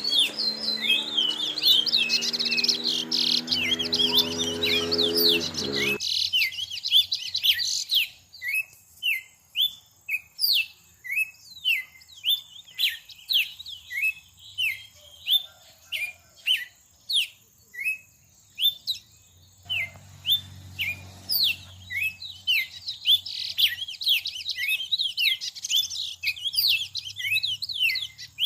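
A small songbird chirping over and over: short, high, falling chirps, dense and overlapping for the first several seconds, then spaced out at about two a second.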